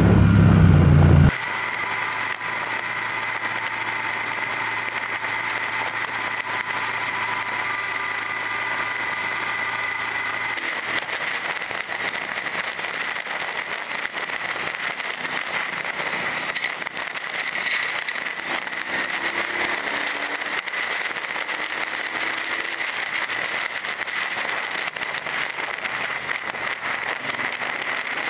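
Triumph Speedmaster 1200's parallel-twin engine running on the move, heard faintly through an action camera's microphone under steady wind noise and crackling. The engine sound fades further about ten seconds in.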